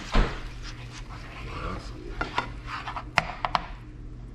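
Utensil knocking and clinking against a cooking pan while a cream sauce is stirred: one loud clank just after the start, then a few sharp clinks in the second half.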